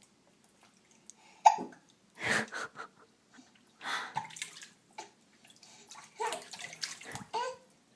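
Bath water splashing and sloshing in several short bursts, with a few short, sharp hiccups between them.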